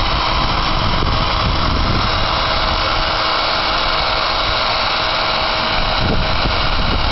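Cordless drill spinning a wire cup brush against an alloy wheel: a steady, harsh scouring hiss over a constant motor whine as the wire strips the wheel back to bare metal.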